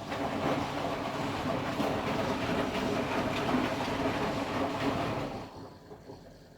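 Candy Formula Inox P 7.71X washing machine's drum tumbling a wash load: the motor starts abruptly and turns the drum for about five seconds with laundry and water rumbling and sloshing, then winds down into a pause of the wash action.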